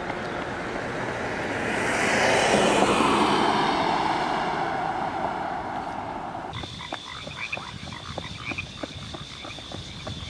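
A car passing by on the road, its tyre and engine noise swelling to a peak a few seconds in, falling in pitch and fading. About six and a half seconds in the sound changes abruptly to a steady high insect buzz with rapid crunching footsteps of someone running on a gravel path.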